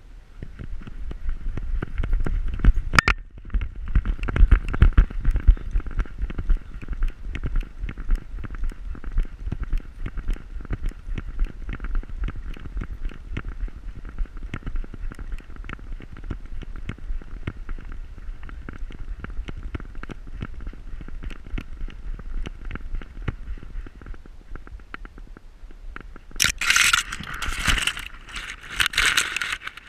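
Camera strapped to a trotting dog's back: constant rubbing and rapid knocking of the mount with its movement over a low rumble, with a sharp click about three seconds in. Near the end, pine twigs and grass scrape loudly against the camera for about three seconds.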